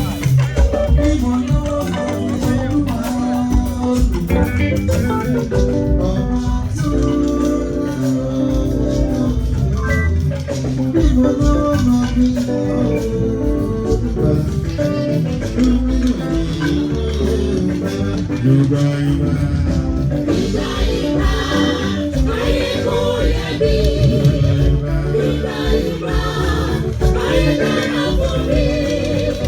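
Live church band music with keyboard and a shaker rattle, steady throughout, with singing that comes up stronger about two-thirds of the way in.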